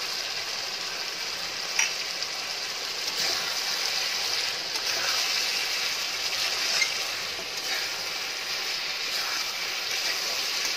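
Chicken pieces in oil and masala sizzling steadily in a wok as a nut and coconut paste is poured in and stirred, with a couple of sharp clicks of the spatula against the pan.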